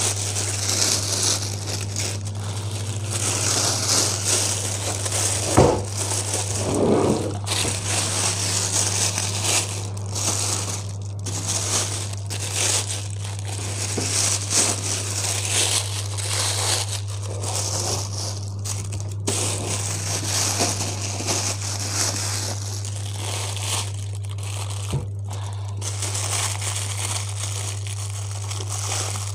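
Plastic wrapping crinkling and rustling as it is handled and pulled around a new amplifier, with a single knock about six seconds in, over a steady low hum.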